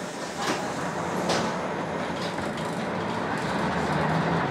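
Jelcz 120M manual-gearbox city bus running along, heard from inside the passenger cabin: steady engine and road noise with cabin rattles. Two sharp knocks come in the first second and a half.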